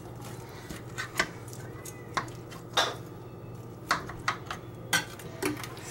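A metal fork knocking and scraping against a glass baking dish as it digs into a cheesy casserole, giving about eight irregular sharp clicks and taps over a steady low hum.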